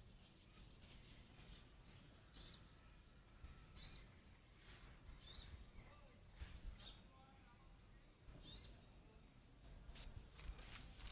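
Faint short, high chirps from a wild sogon bird calling while it forages, repeated about every second, over a steady high-pitched hiss.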